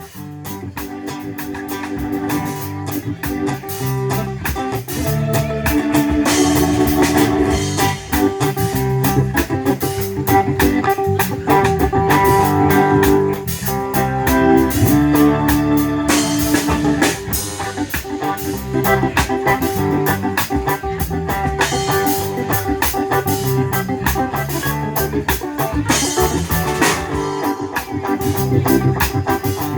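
Live reggae band playing an instrumental intro, fading in over the first few seconds: drum kit, bass, guitar and held organ chords.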